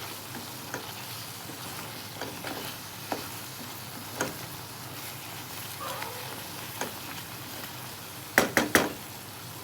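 Curry sizzling in a pot while being stirred, with scattered light clinks of the stirring utensil. Near the end come three quick, loud knocks.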